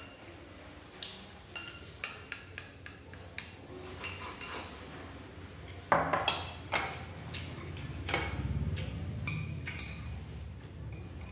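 Chopsticks clicking against a porcelain bowl, then a louder clatter of china and chopsticks being set down on the wooden table about halfway through. After that comes a low, steady handling rumble as the stainless steel soup pot is lifted, with a few more knocks.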